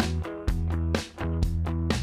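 Background music: guitar over a steady beat of about two strikes a second.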